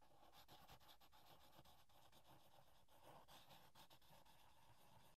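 Faint scratching of a pen on paper: continuous writing with many small, quick strokes.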